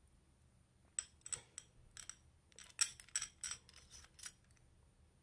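Small hard parts, metal or glass-like, clinking and clicking as they are handled: about a dozen sharp clinks between about one and four seconds in.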